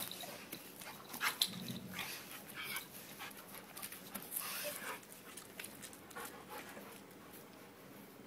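Two dogs play-fighting: panting and scuffling, with short bursts of noise that thin out after about five seconds.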